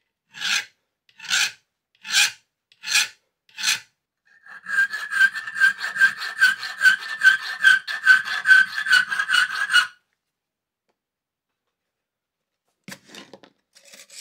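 Steel hand file on the steel end of a turnbuckle held in a vise: five slow, separate strokes, then a run of quick short strokes, about three a second, with a high ringing squeal, as a notch is filed for the wire. A brief light clatter of tools near the end.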